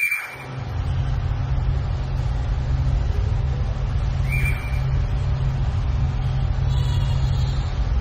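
Electronic music from a Bastl Thyme robotic delay processing a field recording with feedback: a low, steady rumbling drone swells in within the first second and holds. A short high chirp at the start comes back about four seconds later as a delay repeat.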